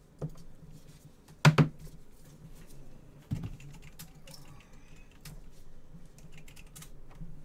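Cardboard trading-card boxes being handled: light taps, clicks and scraping, with a sharp knock about 1.5 s in and a dull thump a little over 3 s in as a box is set down on the table.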